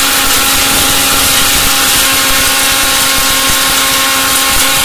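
Electric mixer grinder running with its steel jar, grinding roasted date seeds into a coffee-like powder: a loud, steady motor whine over dense grinding noise.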